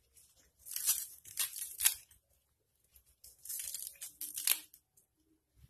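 A knife slicing through a handful of fresh coriander leaves and stems held in the hand, crisp rasping cuts in two runs, about a second in and again about three and a half seconds in.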